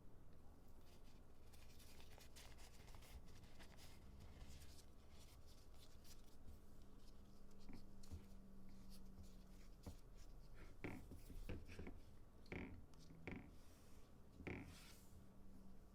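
Faint rubbing and scratching of hands handling a phone and its accessories, with a few light clicks or taps in the last few seconds.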